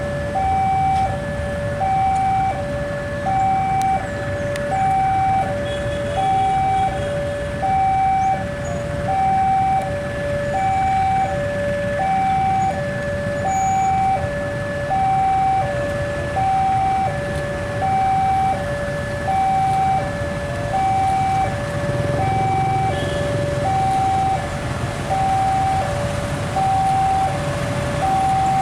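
Railway level-crossing warning alarm sounding: an electronic two-tone signal alternating steadily between a higher and a lower pitch, about one high-low pair a second, over a low traffic rumble. It signals that a train is approaching and the crossing is closing.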